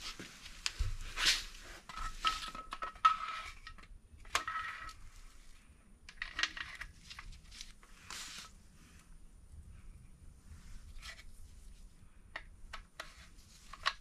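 Metal clinks, knocks and rattles of a steel camshaft timing chain and its sprockets being handled and fitted into a BMW N54 engine, with a brief metallic ringing note a few seconds in.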